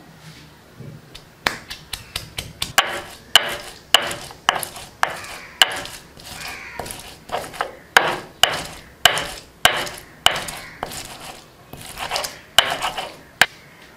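Garlic, ginger and chilli being crushed and ground into a paste with a hand stone on a flat stone slab: a run of sharp knocks, roughly two a second, with gritty scraping between some of them.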